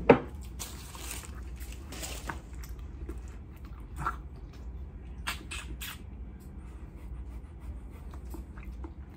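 A young German Shepherd sniffing and nosing at food, with short breathy sniffs early on and a few small mouth clicks a little past halfway.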